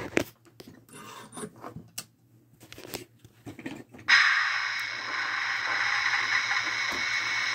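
Small clicks and scrapes. About four seconds in, a steady rushing rumble starts suddenly: a model train running along the layout's track.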